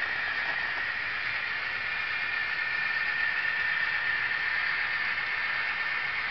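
Model freight cars rolling along the layout track: a steady hiss with no separate clicks or beats.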